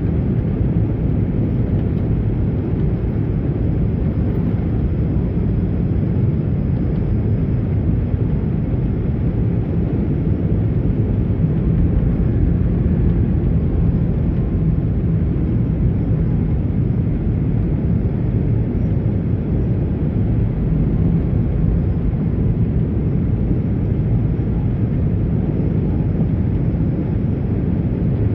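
Airliner landing: a steady low rumble and roar heard near its landing gear, even throughout with no single thump.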